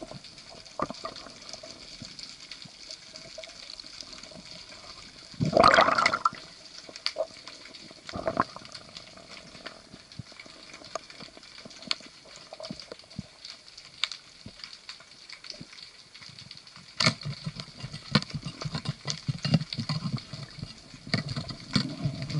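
Underwater sound picked up by a diving camera: a steady hiss of sea water with scattered clicks, and a loud rushing burst about six seconds in. A sharp crack at about 17 seconds is followed by repeated low thuds and knocks, which fits a speargun shot and a speared rockfish struggling on the shaft.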